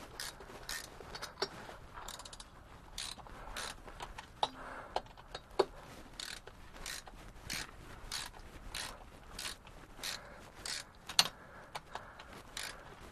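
Ratchet spanner clicking in short uneven runs, about two clicks a second, as bolts on a tractor's hydraulic filter housing are worked, with a couple of sharper metallic clicks among them.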